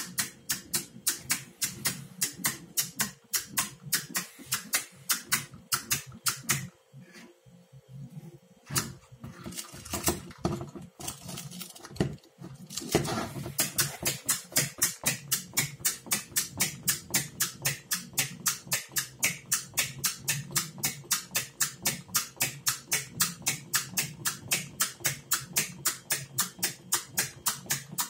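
Wind-up plastic rocking toy running, its clockwork clicking rapidly and evenly, about three clicks a second. About a quarter of the way in the clicking stops for a few seconds, with a few scattered knocks, then starts again and keeps going.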